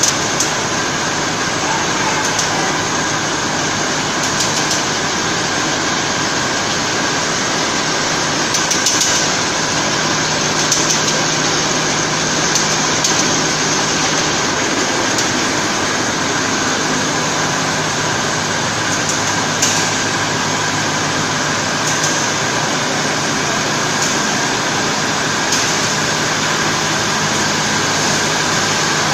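Gauze drying machine running: a steady, even mechanical whir with a faint hum, and occasional faint clicks.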